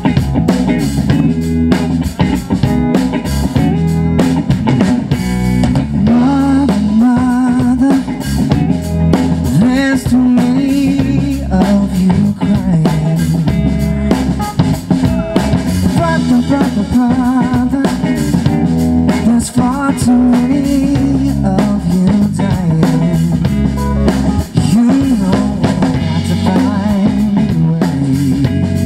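A live rock band playing at a sound check: drum kit, bass and electric guitar, with a voice singing over them at times.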